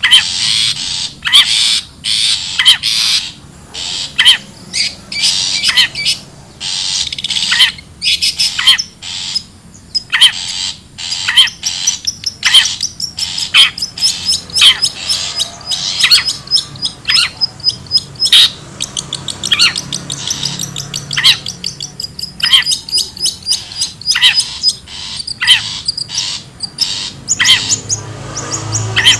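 Long-tailed shrike (cendet) calling: loud, harsh, rapid chattering and squawking notes, with runs of fast, thin, high notes in the middle stretch.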